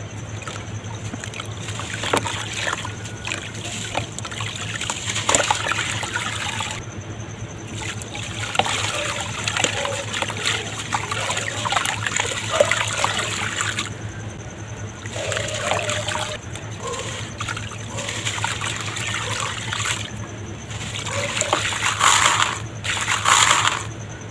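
Red dirt crumbling in water, with splashing and many small crackling ticks. There are two louder splashes near the end.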